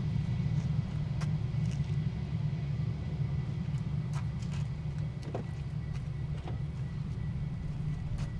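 Airbus A320 jet engines at idle thrust as the airliner taxis: a steady low rumble with a faint high whine, easing off slightly in the second half.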